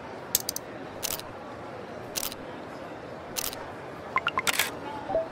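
Camera shutter clicks, about five shots at irregular intervals of roughly a second, over steady background noise. A few short high blips come just before the last shot.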